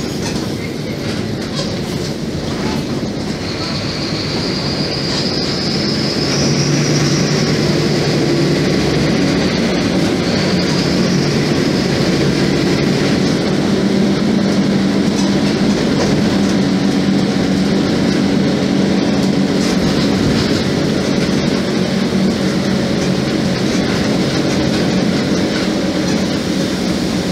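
Mercedes-Benz OF-1724 Bluetec 5 bus's diesel engine running under way, heard inside the passenger cabin, getting louder about six seconds in as it pulls. A high whine rises and falls over several seconds in the first half.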